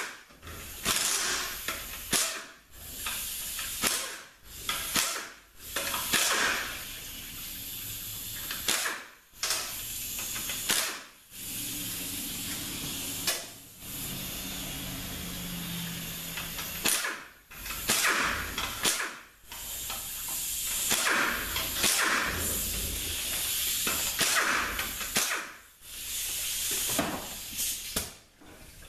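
Power ratchet run in many short bursts with a hiss, backing out the 10 mm bolts that hold the transmission's valve body.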